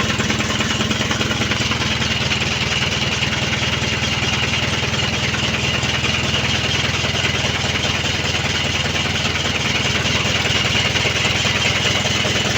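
Mitsubishi Canter's 4D33 four-cylinder diesel being cranked by its starter motor in a steady, fast chugging rhythm without catching: a crank-but-no-start fault.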